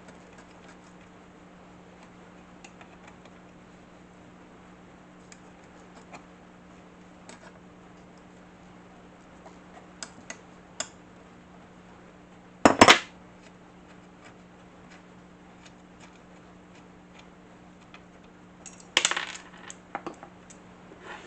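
Small metal parts and hand tools clinking while table saw hardware is taken apart, with scattered light clicks and two louder metal clatters, one about 13 seconds in and a rattling cluster about 19 seconds in, over a faint steady hum.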